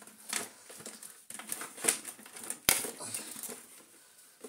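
Plastic housing and motor assembly of an Electrolux Turbomatic Z380 vacuum cleaner being worked loose by hand: irregular clicks, knocks and rattles, with one sharp click about two and a half seconds in.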